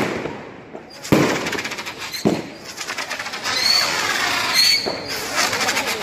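Consumer aerial firework cake firing: sharp bangs about one and two seconds in, then dense crackling from about halfway, with short rising whistles over it.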